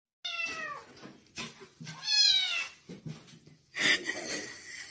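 Kitten meowing: two high-pitched meows that slide downward in pitch, about two seconds apart, followed by a short noisy burst near the end.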